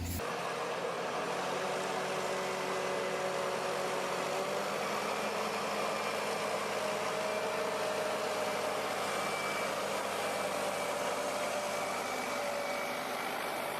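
Engine of a heavy forestry machine running steadily, with a faint whine that drifts slowly in pitch.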